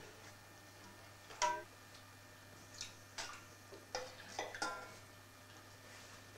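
Soup being served with a ladle from a stainless steel saucepan into a china plate: a few faint, scattered clinks and taps of the ladle against the pot and plate, one about a second and a half in ringing briefly, then a cluster of light knocks a few seconds later.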